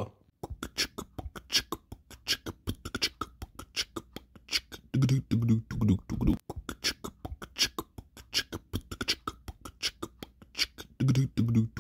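Outro music: a fast, clicking percussive beat in the manner of beatboxing, with short pitched vocal phrases about five seconds in and again near the end.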